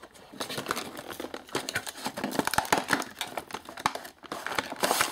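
A cardboard toy box being opened and its card-backed plastic blister pack slid out: a continuous run of rustling, crinkling and scraping, dotted with small clicks.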